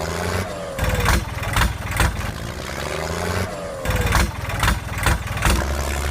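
Motor vehicle engine running low and steady, with irregular sharp knocks and clatter over it and a couple of falling glides in pitch.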